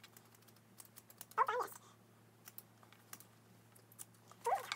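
Scissors snipping at the mesh netting around a squishy stress ball: a scatter of small, irregular clicks.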